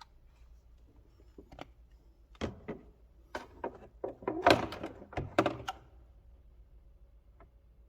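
A run of hard plastic clicks and knocks over a few seconds, the loudest about halfway through: the air filter housing of a Mercedes-Benz engine being handled, its cover and clips knocking into place.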